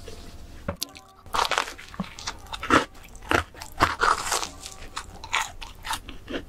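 Close-miked biting and chewing of a donut with a crumbly red topping: a run of sharp crunches starting about a second in.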